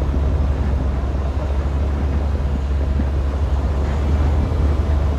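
Steady low rumble of a car on the move, as heard inside the cabin: road and engine noise with no sharp events.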